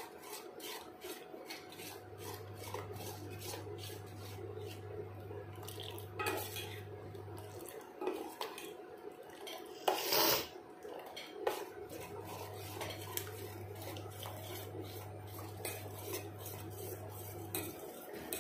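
Metal spoon scraping and clicking against the inside of a stainless steel pot while stirring boiling ragi porridge, with a louder clatter about ten seconds in. A low steady hum comes in twice behind it.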